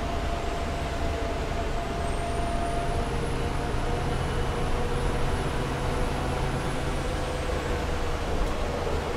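Heuliez GX 317 GNV natural-gas city bus engine running steadily. A faint high whine rises about two seconds in, holds, and fades out near the end.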